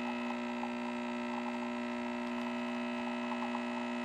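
Capsule coffee machine's pump running with a steady hum while it brews coffee into the cup.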